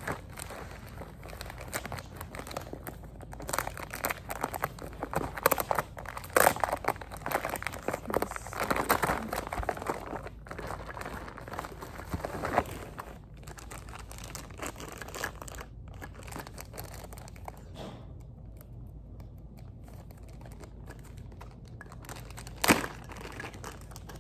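Crinkling and rustling of black plastic bubble mailers being handled and flattened, busiest in the first half and quieter after, with a single sharp tap near the end.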